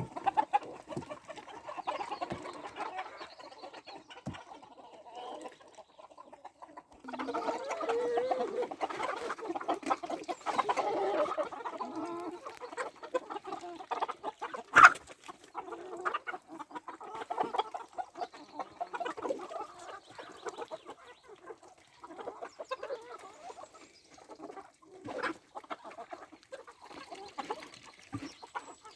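A flock of chickens clucking steadily, busiest and loudest from about seven to twelve seconds in. One sharp knock about halfway through.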